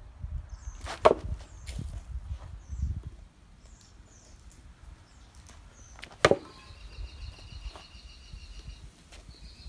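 Two hard blows of a rattan sword striking a pell of hung tyres, about five seconds apart, with a few lighter knocks soon after the first.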